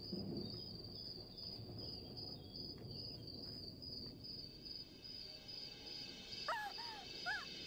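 Crickets chirping in a steady, pulsing high trill over a low background rumble. About six and a half seconds in, a wavering high-pitched gliding sound begins.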